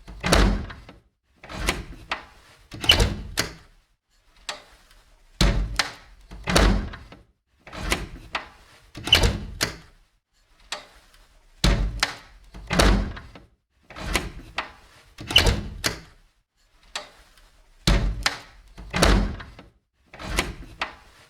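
An old door being opened and closed over and over: latch clicks, rattles and solid thuds. The same open-and-close sequence repeats about every six seconds.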